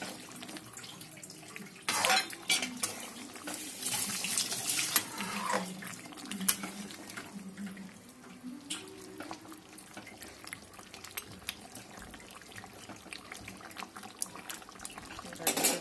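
Chicken curry simmering in a metal pot with a steady hiss, while a spoon stirs it, clinking and scraping against the pot. The stirring is busiest about two to six seconds in.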